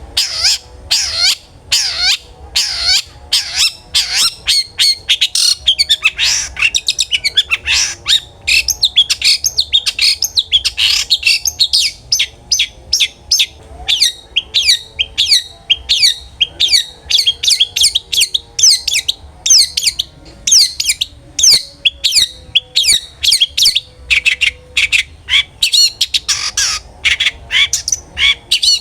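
Long-tailed shrike (cendet) singing loudly and without pause: a rapid stream of sharp, chattering, high notes, several a second, starting abruptly.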